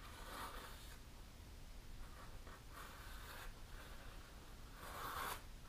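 A sheet of thick paper rustling and being sliced by a freshly sharpened kitchen knife, in a paper-cutting test of the edge: three short papery swishes, the last the loudest.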